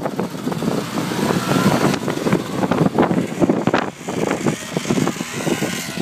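Polaris ATV engine running as it ploughs through deep snow, passing close and then pulling away, with blizzard wind buffeting the microphone in a rough, choppy rush.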